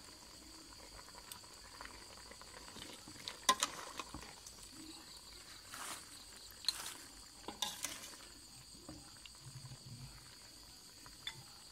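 A metal ladle scraping and clinking against a pot and a bowl as boiled chicken pieces are scooped out, a few sharp knocks spread over the middle of the stretch. Crickets chirp steadily in the background.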